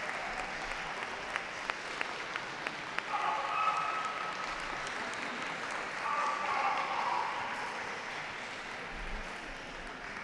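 Ringside crowd applauding a dog as it is presented, with a few sharp claps standing out in the first few seconds; the applause eases off towards the end.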